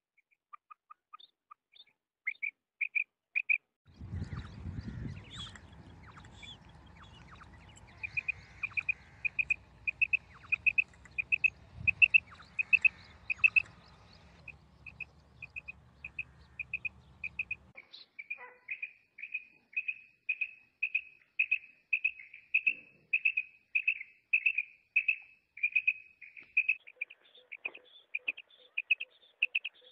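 Female quail giving its repeated 'krik' call: a long series of short, sharp notes, scattered at first, then about two to three a second. A low background rumble runs under the calls through the middle part.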